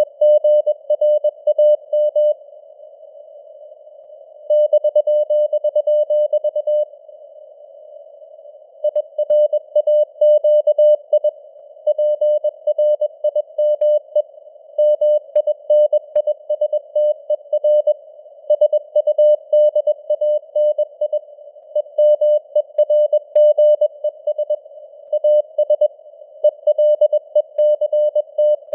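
Morse code (CW) at 21 words per minute: a single mid-pitched beep keyed rapidly in dots and dashes over a narrow band of simulated radio hiss, with the signal strength fading up and down (QSB). The keying pauses twice for about two seconds near the start.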